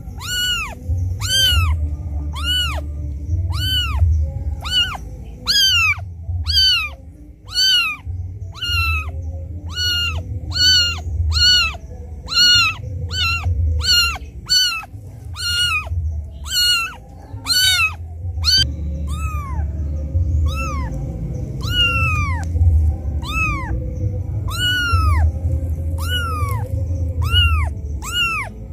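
Very young kitten crying for its mother, which has left it: loud, repeated high-pitched mews, each rising and then falling in pitch, about one to one and a half a second with only a short break past the middle.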